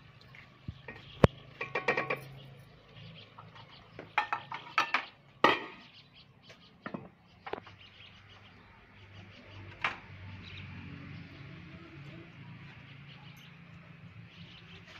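A wooden spoon knocking and scraping against a metal cooking pot, and the pot's lid set on with clinks: a cluster of sharp knocks and clinks in the first seven seconds. After that only a faint steady hiss, with one more click about ten seconds in.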